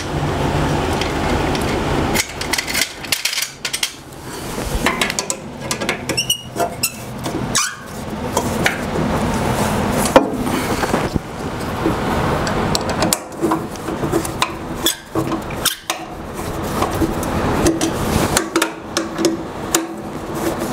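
Hand tools clicking and knocking against metal as bolts and washers are fastened into a table saw's base, in irregular runs of sharp clicks and rattles. A steady low hum runs underneath from about eight seconds in.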